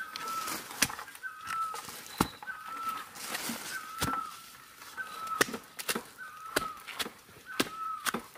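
A long wooden digging pole striking into soil around a bamboo shoot: sharp knocks about every second, loudest of all. Behind them a bird repeats a short call that drops in pitch, about once a second.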